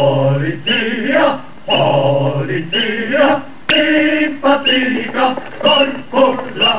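Unaccompanied voices chanting in short phrases with brief breaks between them, without instruments.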